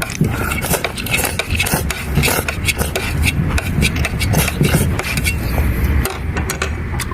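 Scraping and eating pineapple flesh: irregular scrapes and small clicks of a utensil working the fruit, steady throughout.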